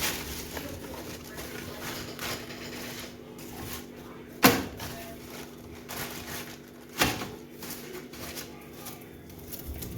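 Two sharp knocks about two and a half seconds apart, the first the louder, with scattered faint clicks over a steady low hum.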